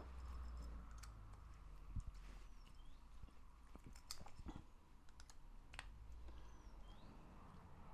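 Faint, scattered clicks and ticks as a long Allen key is turned by hand, driving a 12 mm grub screw into a metal suspension arm. A low hum sits underneath.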